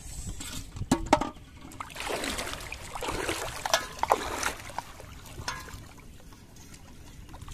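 Shallow water sloshing and splashing as people wade knee-deep through it, in uneven spells, strongest in the first half. A couple of sharp knocks about a second in.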